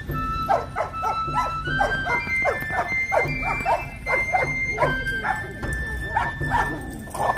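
Dog barking over and over, a few quick barks each second, with background music under it.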